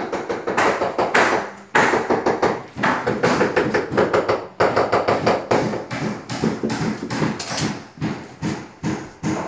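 Repeated hard knocks, a few a second, from building work in a tiled room, with music underneath.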